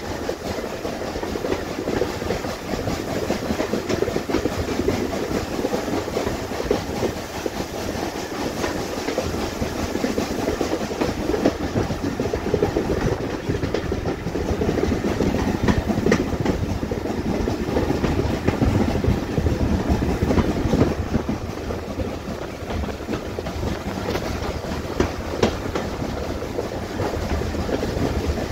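Steam-hauled heritage train running along the line, heard from an open carriage window: the steady rumble and clickety-clack of the coach wheels over the rail joints.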